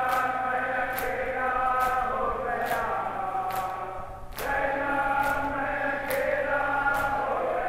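A group of men chanting a noha, a mourning lament, in unison, with rhythmic chest-beating (matam) at a steady beat of a little over one stroke a second. The singing breaks off briefly about four seconds in and resumes.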